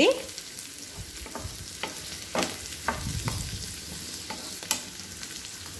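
Chopped onion, capsicum and green chillies sizzling in oil in a frying pan, stirred with a wooden spatula that scrapes and taps against the pan now and then. They are being stir-fried briefly so they stay crunchy.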